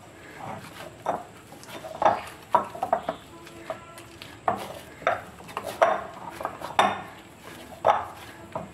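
Potato chapati dough being kneaded by hand in a glass bowl: irregular knocks and bumps of the dough and hand against the glass, about one or two a second.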